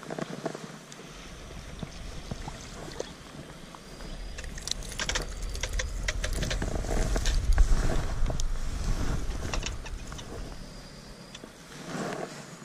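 Wind rumbling on the microphone, building through the middle and fading toward the end, with a run of sharp clicks and splashes as a small fish is reeled in and lifted from the water.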